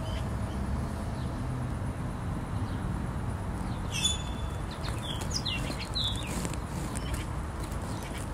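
A few short bird chirps, a cluster about four seconds in and a few more a second later, over a steady low background rumble.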